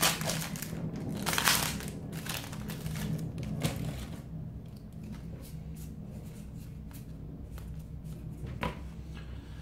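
Foil wrapper of a Magic booster pack crinkling as it is torn open, loudest about a second and a half in. After that come softer, scattered clicks and rustles as the stack of cards is pulled out and fanned through.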